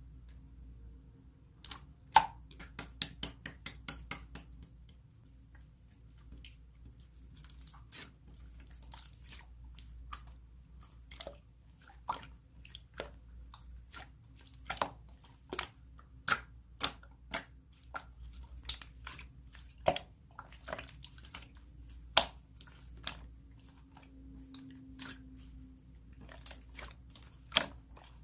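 Slime being squeezed and pressed by hand, giving irregular sharp clicks and pops of trapped air, sometimes several close together, over a faint steady hum.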